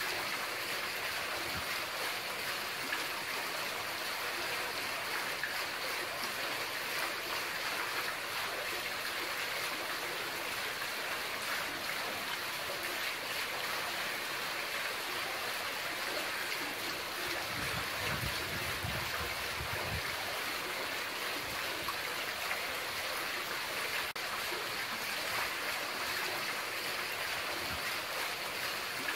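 Water running steadily from the taps of a mosque's şadırvan ablution fountain and splashing into its basin, an even, continuous rush.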